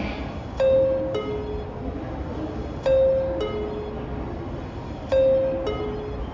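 Two-tone electronic station chime, a bright high note and then a lower one, repeating steadily about every two and a quarter seconds, three times, over the low rumble of the station.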